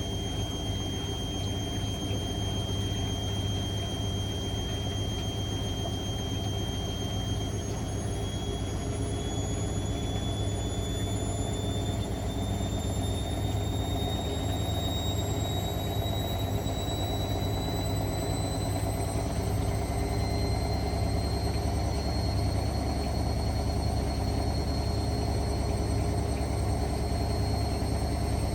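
Hotpoint WML540 washing machine's drum motor running steadily, a low hum under a high thin whine that rises slowly in pitch from about eight seconds in, then holds.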